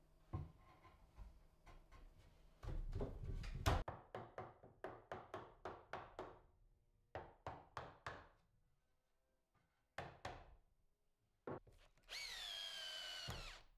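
An oak divider being tapped into its glued slot with a hammer: about a dozen quick knocks on the wood, then two single knocks. Near the end a drill drives a screw into the oak, its motor whining for about a second and a half.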